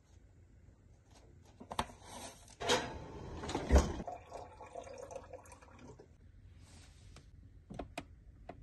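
Kitchen handling sounds: water running for a second or so, with a hard knock in the middle and scattered light clicks.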